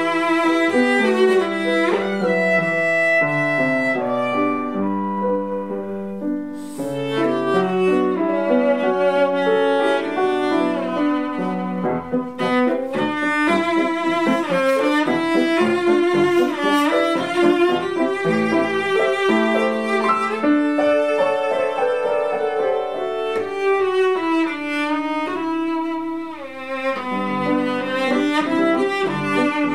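Solo cello played with the bow: a continuous melodic line of changing notes, with a few sliding notes and a falling run about three quarters of the way through.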